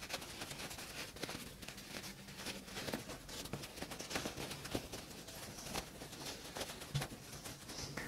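Faint rustling and small irregular taps of cotton fabric being handled as a sewn piece is turned right side out through its opening.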